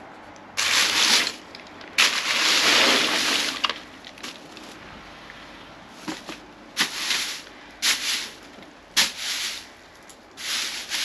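Plastic trash bags and loose rubbish in a dumpster rustling and crinkling as they are handled, in about seven loud bursts of a second or so each.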